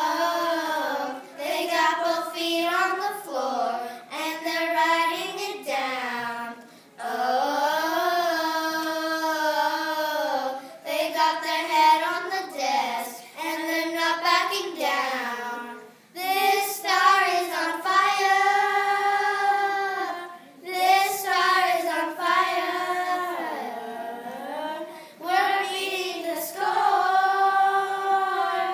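Four children singing together, in long sung phrases with short pauses between lines.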